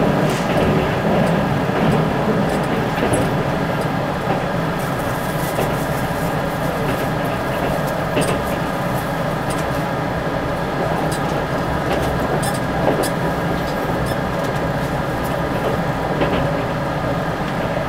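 Keisei Skyliner train running at speed, heard from inside the passenger car: a steady rumble of wheels and running gear, with a few faint clicks now and then.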